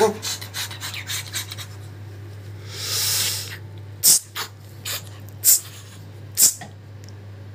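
Scratchy rubbing and a few sharp clicks close to the microphone as an umbrella cockatoo pushes its beak up against the phone, with a short breathy hiss about three seconds in.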